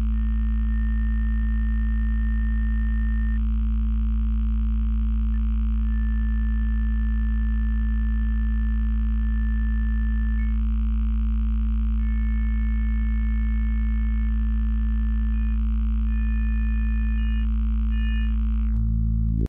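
Wavetable oscillator of the Moselle software synthesizer sounding a steady, low, buzzy drone, with no envelope or filter on it. Thin, high whistling overtones come and go as single harmonics are painted into the wavetable. The tone changes briefly just before it stops abruptly at the end.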